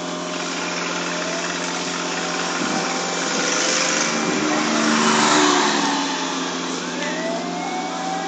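An engine running steadily under a noisy bed, with a swell of hiss about four to six seconds in and a rising whine near the end.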